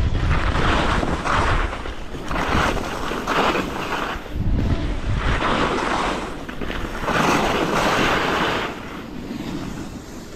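Skis carving down a groomed slope, a scraping hiss of the edges on snow that swells with each turn about once a second, with wind rumbling on the microphone.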